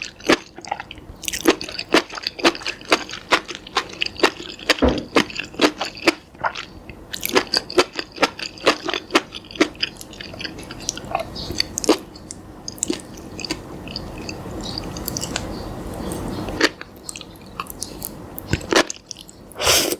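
Hands squeezing and poking white slime, making a rapid, irregular run of sticky clicks and pops.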